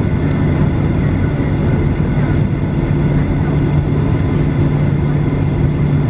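Cabin noise of a Boeing 737-800 taxiing, heard from a window seat over the wing: its CFM56 engines at idle give a steady low hum over an even rumble.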